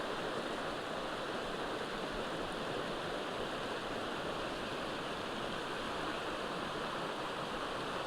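A creek's water running steadily, an even rushing with no breaks.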